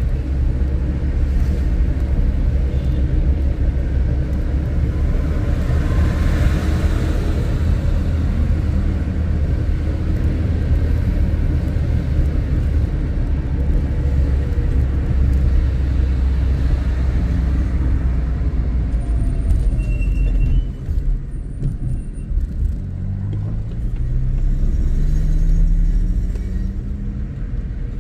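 A moving car's steady low road and engine rumble. Late on, the engine note climbs steadily as the car speeds up.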